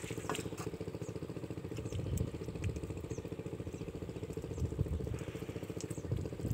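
Small single-cylinder diesel engine driving an irrigation water pump, running steadily with a rapid even chugging of about nine beats a second.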